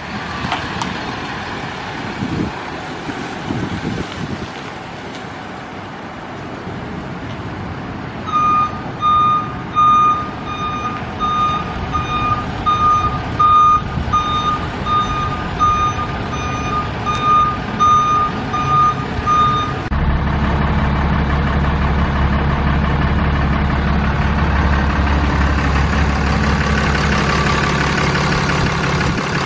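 Dodge Ram 4500's 6.7-litre inline-six diesel running while the truck's backup alarm beeps steadily, about one and a half beeps a second, for some twelve seconds. After the beeping stops, a steady deep engine drone takes over.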